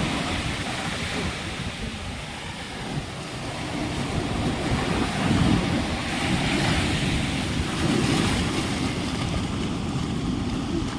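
Sea surf breaking and washing in, rising and falling in slow surges, with wind buffeting the microphone.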